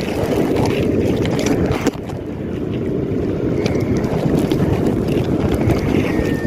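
Wind buffeting the microphone at sea, a steady low rumble with water sloshing beneath it, and a faint short squeak near the end.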